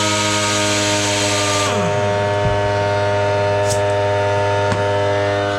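Hyper Tough air compressor running with a loud, steady hum while an air impact gun is used off it; a little under two seconds in, the tool's hiss and whir wind down with a falling pitch, and the compressor's hum carries on until it cuts off near the end.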